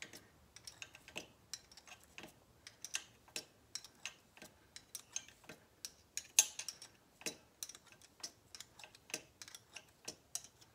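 Light, irregular metallic clicks and ticks, a few a second, from a hand-turned thread tap and its wrench as a thread-repair tap is worked into the GS1100's broken exhaust-stud hole.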